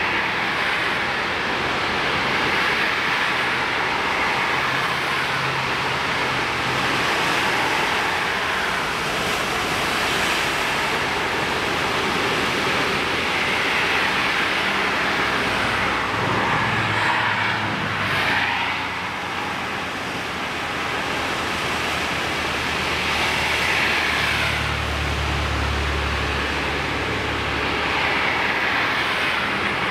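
Road traffic: cars passing one after another, their tyre hiss and engine hum swelling and fading several times over a steady background rush.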